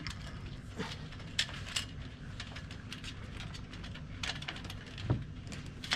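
Scattered light clicks and knocks from a Hobie 16's mast and rigging fittings being handled, over a low steady background noise.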